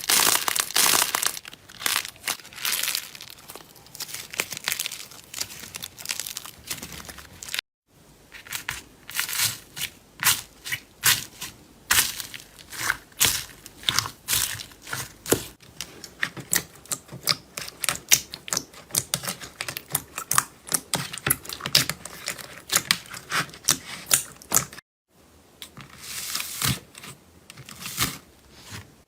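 Slime being squeezed, stretched and poked by hand, giving dense crackling, clicking and popping, broken twice by a brief silence where one clip cuts to the next.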